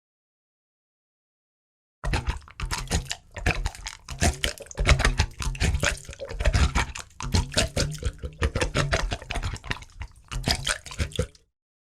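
Water splashing and dripping in a quick, irregular run, starting about two seconds in and stopping shortly before the end.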